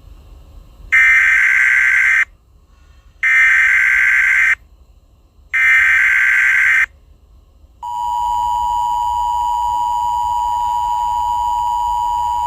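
Emergency Alert System header: three SAME data bursts, each a harsh digital buzz lasting about a second and a quarter, then the steady two-tone EAS attention signal starting about eight seconds in. These tones announce that an emergency alert message is about to be broadcast.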